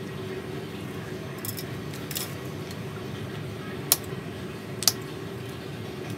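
Pruning shears snipping twigs on a bonsai: a few crisp snips, the two loudest about four and five seconds in, over a steady low hum.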